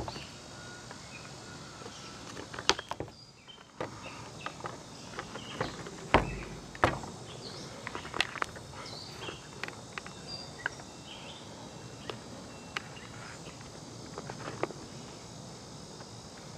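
Scattered clicks, taps and knocks of hands handling a Sedici motorcycle helmet while fitting parts of a Bluetooth intercom into it, with a heavier thud about six seconds in.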